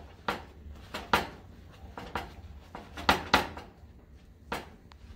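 Paper towels crinkling and rustling in about six short bursts as hands press and pat raw snapper dry, over a faint low steady hum.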